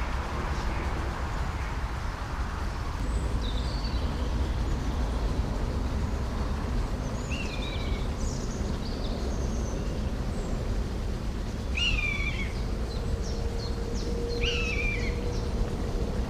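Common buzzards calling: high, falling mewing cries, three clear ones in the second half, over a steady low rumble.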